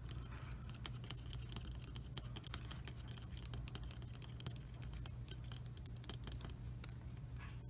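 Stir stick clinking and scraping against the inside of a small glass jar of black model paint as the paint is stirred: rapid, irregular clicks that thin out near the end.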